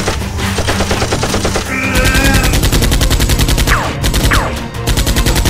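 Rapid automatic gunfire, a machine-gun sound effect firing in fast, continuous bursts, growing louder about two seconds in.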